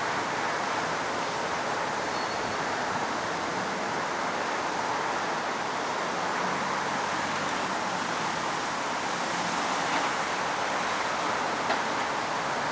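Steady, even rush of a thunderstorm's wind and heavy rain, without thunder, with one small tick near the end.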